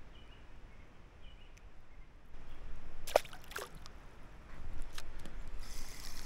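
Quiet background with small clicks and rustles of hands baiting a fishing hook, broken by two quick falling squeaks about three seconds in and a sharp click near five seconds. A steady hiss sets in near the end.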